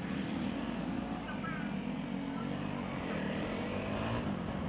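Steady drone of vehicle engines in busy road traffic, with voices chattering faintly in the background.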